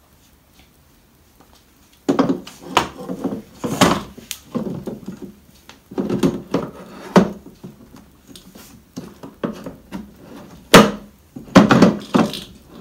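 The lower handle of a Spear & Jackson electric lawnmower knocking and clattering against the mower's body as it is worked into its mounts: a string of irregular thumps and clicks starting about two seconds in, with a few sharp, loud knocks.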